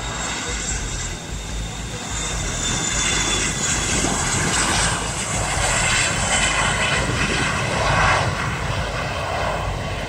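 Bombardier Challenger 300 business jet's twin turbofan engines at takeoff power: a jet roar with a high whine over it, growing louder a couple of seconds in and loudest near the end before easing slightly.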